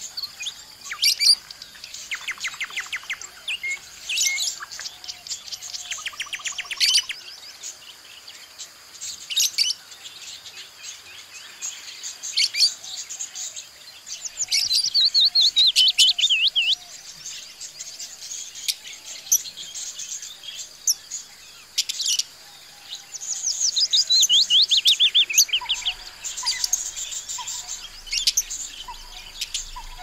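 Budgerigars chirping and chattering in many short high calls, with two longer runs of fast trilling chirps, one about halfway through and one near three-quarters of the way.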